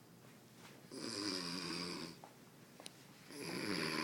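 A man snoring in deep sleep: two long, rasping snores, the first about a second in and the second near the end, with a quiet pause between.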